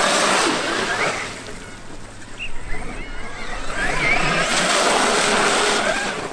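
Traxxas X-Maxx electric RC monster truck driving in two runs, about a second in and again near the end. Its brushless motor's whine rises and falls over the rush of its tyres churning the ground.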